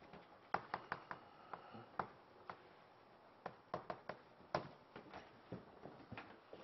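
Chalk writing on a blackboard: a string of sharp taps and clicks as the chalk strikes and lifts off the board, coming in small clusters with gaps between them.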